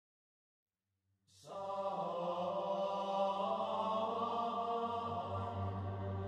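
Silence, then about a second in a piece of slow, sustained chant-like music begins: held voices or tones over a steady low drone.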